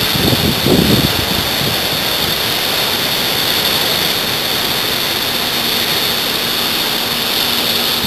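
Steady rushing noise of breaking surf and wind, with low wind buffeting on the microphone in about the first second.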